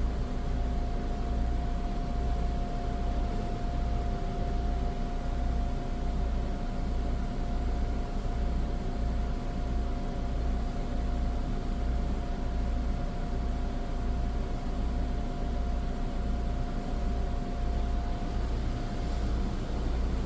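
Toyota Sienta's air-conditioning blower running at fan speed 3 on maximum cooling, a steady rush of air over a low, evenly pulsing rumble. A faint steady whine runs under it and stops near the end.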